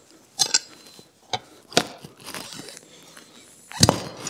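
Pry bar levering at the bead of a garden tractor tire on its rim: a few sharp knocks and scrapes, the loudest near the end. The bead is tight and does not break loose.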